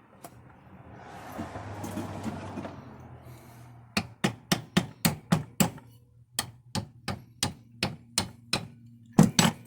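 A brief rushing hiss, then a run of sharp strikes, about two or three a second, on a first-gen Cummins Bosch injector clamped in a vise, knocking at its heat-stuck copper tip washer to break it loose.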